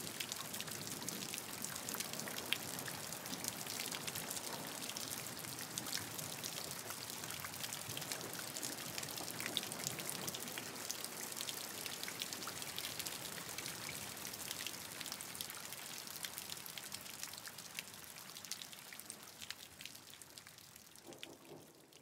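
Steady rain falling, an even hiss dotted with many small drop taps, fading away near the end.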